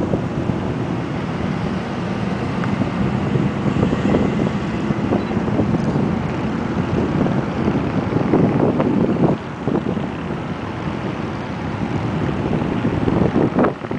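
A steady stream of cars passing one after another on a highway, with tyre and engine noise, and wind buffeting the microphone in gusts, strongest about eight seconds in and near the end.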